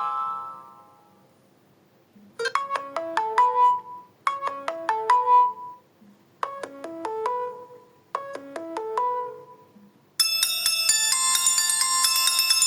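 Samsung Galaxy Feel built-in ringtones. The previous tone fades out, then a short melody of a few notes plays four times with pauses between. About ten seconds in, a different, busier tone with many high notes starts.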